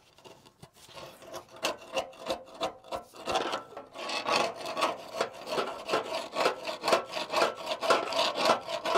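Hand tool scraping caked rust scale and dirt out of the steel frame rail of a Ford Super Duty truck, in quick repeated rasping strokes that grow louder and denser about four seconds in.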